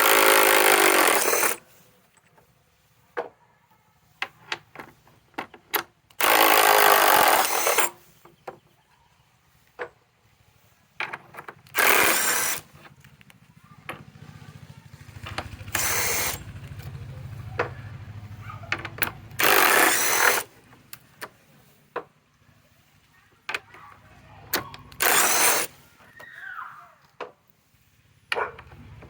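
Cordless impact driver hammering screws back out of wood in six short bursts, several seconds apart, with small clicks from handling the screws between them.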